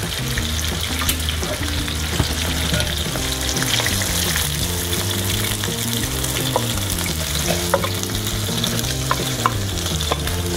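Cornstarch-coated fish pieces sizzling in hot frying oil, a steady hiss, as the pan of oil and fish is poured out through a mesh strainer. In the second half a spatula scrapes the fish out of the pan with a few light clicks and taps.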